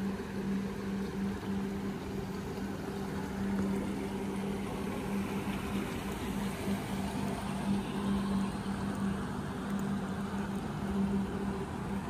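Steady machine hum: a constant low drone with a fainter tone an octave above it, over an even wash of noise.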